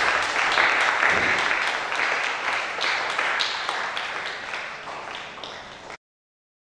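Congregation clapping, a dense patter of many hands that fades steadily and then cuts off abruptly near the end.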